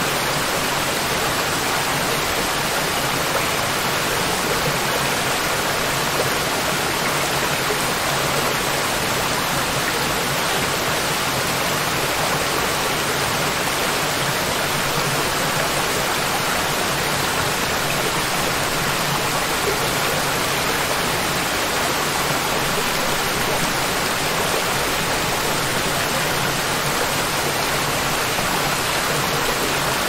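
Small waterfall spilling in thin streams over a rock ledge into a pool: a steady, even rush of falling and splashing water.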